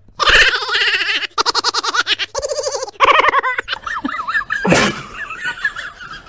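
A person laughing hard in a quick run of giggles for the first three and a half seconds. About five seconds in comes one sudden short noise, with a faint wavering high tone to the end.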